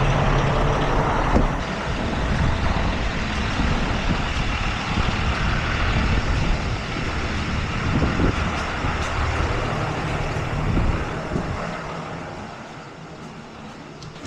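Heavy truck engine running steadily, then dying away over the last two seconds.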